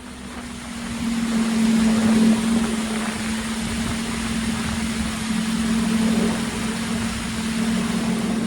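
Boat motor running steadily with water and wind rushing as the boat moves across the lake. The sound builds over the first second or so, then holds even.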